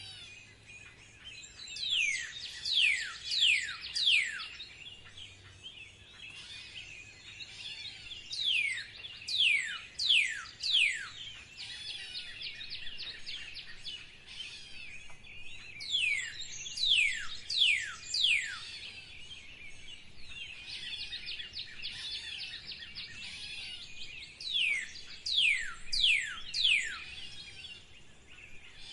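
Birdsong: one bird repeats a phrase of about four loud whistles, each sliding steeply down in pitch, four times roughly every seven seconds, over a steady chorus of many small chirps from other birds.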